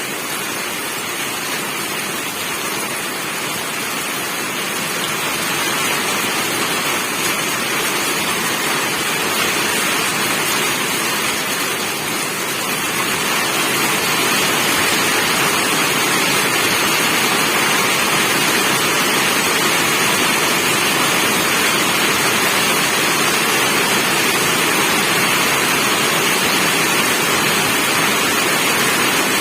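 Steady downpour of rain, an even hiss that grows louder about halfway through and then holds.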